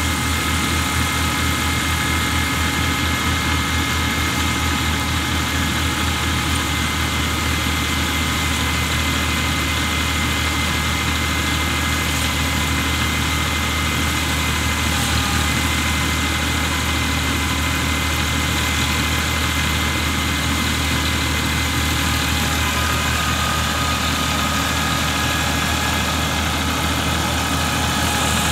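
Massey Ferguson tractor engine running steadily while driving a paddy thresher, the threshing drum spinning with it as rice sheaves are fed in. A constant low hum with a few steady high tones over a rushing noise, unchanging throughout.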